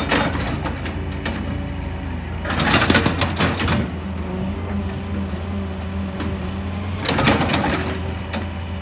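Excavator's diesel engine running steadily, with two harsh bursts of rock crunching and rapid hammering, each about a second long.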